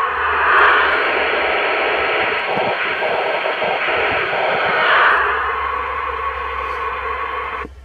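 Mobile CB radio's receiver tuned to 27.555 MHz upper sideband, giving out steady band hiss and static while no station answers the call. The hiss swells twice and cuts off abruptly just before the end.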